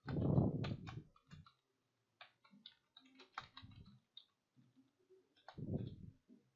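Typing on a computer keyboard: irregular key clicks, with a louder low bump at the start and another shortly before the end.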